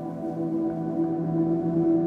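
Ambient background music of sustained, steady drone tones.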